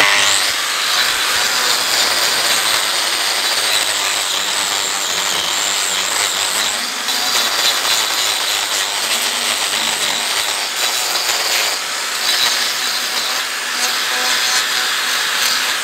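Angle grinder fitted with a toothed hoof-trimming disc, running steadily with a high whine as it grinds horn from a cow's claw sole. The sole is being taken right down to treat a sole ulcer.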